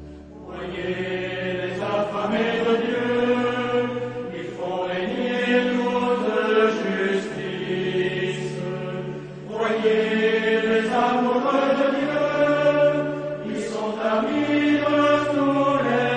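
Slow vocal chant music: voices holding long notes that shift in pitch every second or two, with a brief dip about nine and a half seconds in.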